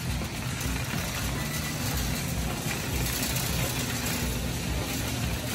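Shopping carts rolling fast over a concrete store floor, a steady low rumble and rattle of wheels and wire baskets.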